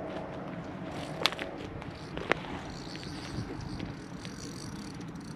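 Steady, fairly quiet outdoor background noise with two sharp clicks, one about a second in and another about two seconds in.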